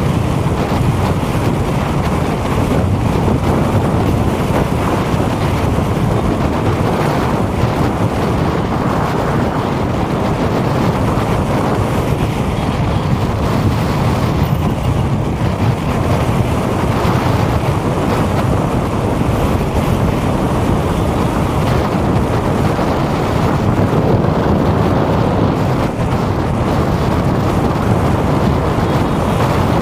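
Steady low rumble of wind on the microphone over general city street noise, with no single event standing out.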